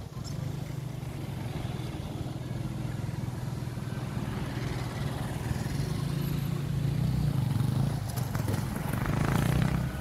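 A motor vehicle's engine runs with a steady low hum that grows louder toward the end, with a few short clicks near the end.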